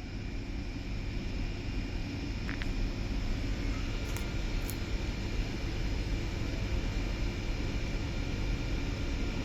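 Low, steady rumble of an approaching train, slowly growing louder.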